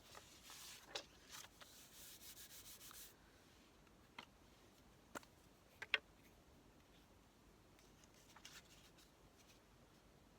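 Paper being handled, with a fold creased by rubbing along it: a scratchy rub for the first three seconds, then a few light taps and clicks.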